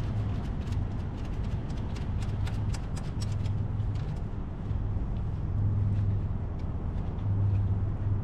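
An engine running with a steady low hum that swells twice in the second half, with scattered light clicks and taps over it.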